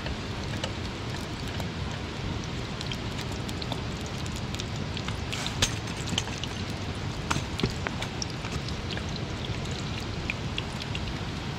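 Hot oil sizzling and crackling in a pan over a camping gas stove on high flame, with many small scattered pops and a steady low rush underneath; one louder pop about halfway through.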